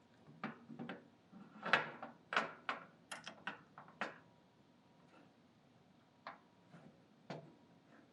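Small hard parts and tools being handled during disassembly: a quick string of sharp clicks and knocks over the first four seconds, then three single knocks spaced out afterwards.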